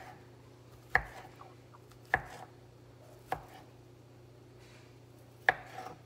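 Knife slicing a Dominican salami into rounds, each cut ending in a sharp knock on the wooden cutting board: four cuts, the first three about a second apart, then a longer pause before the last.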